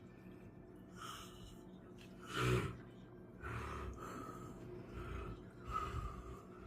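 A man snoring in his sleep: breathy breaths, one loud snort about two and a half seconds in, then several rough, low snores.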